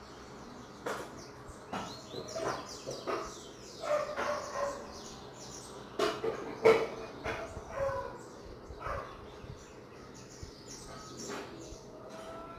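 A dog barking now and then, loudest about two-thirds of the way through, among birds chirping.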